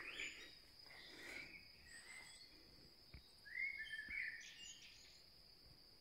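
Crickets singing steadily and faintly, with a few short bird calls a little past halfway.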